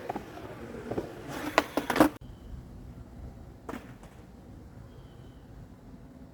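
Skateboard wheels rolling on concrete, then a quick cluster of sharp board clacks and slaps about a second and a half to two seconds in that cuts off abruptly. A single knock follows about a second and a half later.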